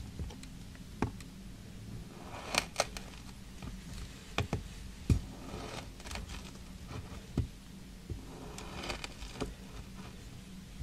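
A knife slicing through kinetic sand: soft, crumbly crunching as the blade cuts, with a handful of sharp, short taps spread irregularly.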